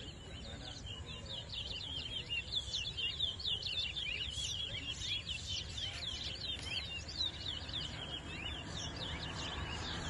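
Caged towa-towa (chestnut-bellied seed finch) singing a fast, almost unbroken run of short high chirps and twitters, over a low wind rumble.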